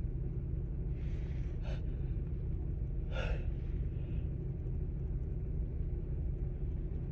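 Steady low rumble of car road noise inside the cabin, with a person's sharp gasping in-breaths about a second in and again about three seconds in, the catching breaths of a sneeze building up.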